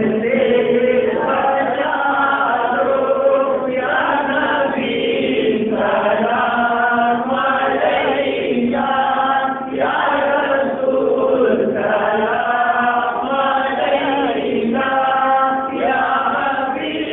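Men's voices singing an Urdu naat without instruments: a lead voice on a microphone with other men's voices joining in chant-like unison.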